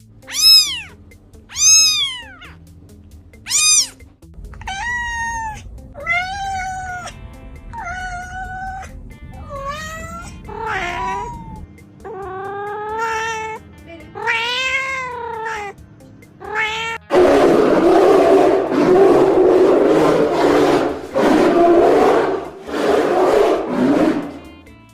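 Animal calls: a string of separate meow-like cries, each rising then falling in pitch, followed about two-thirds of the way in by a loud, rough, noisy stretch.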